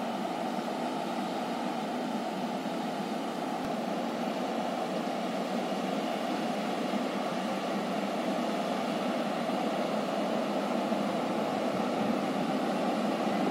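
Steady rushing rumble of a train, slowly growing louder as it approaches.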